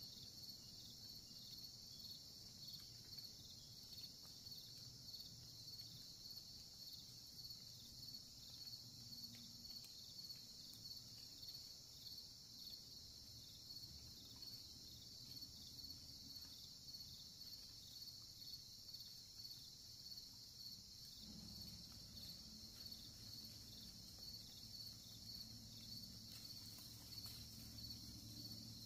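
Faint, steady chorus of insects trilling high and even, with a fine regular pulse. A low rumble comes in about two-thirds of the way through.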